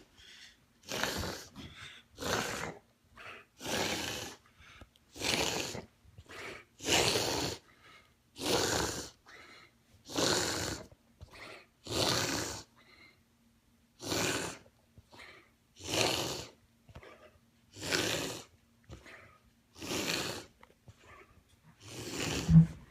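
A dog making a long run of loud, harsh breaths, about one every one and a half seconds. The owner cannot tell whether it is a reverse sneeze, tracheal collapse or laryngeal paralysis. A sharp thump sounds near the end.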